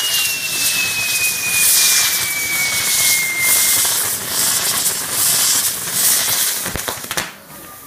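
Firework frame on a pyrotechnic castillo tower burning: a loud, steady hissing rush of spark fountains, with a whistle that slowly falls in pitch over the first few seconds. Near the end come a few sharp bangs, then the hiss drops away as the frame burns out.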